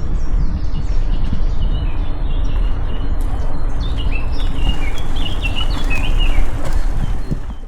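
Small songbirds singing in quick, high chirps and short falling trills, busiest in the middle, over a loud, steady low rumbling noise.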